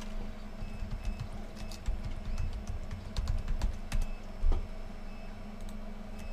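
Typing on a computer keyboard: an uneven run of key clicks, thickest in the middle, with one louder thump about four and a half seconds in, over a steady low hum.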